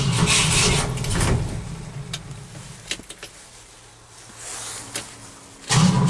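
Cold engine cranked by its starter motor without catching: a cranking burst that fades out over the first second and a half, then a second attempt begins near the end. A cold no-start that the owner thinks is flooded.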